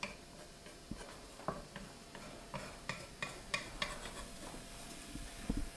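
Thin pancake batter sizzling faintly in a hot nonstick frying pan, with irregular light clicks and taps from the pan and a utensil, and a duller knock near the end.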